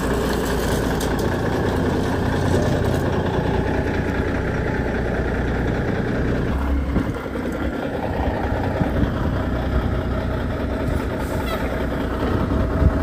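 Peterbilt big-rig diesel engine idling steadily, with a brief dip in its drone about halfway through.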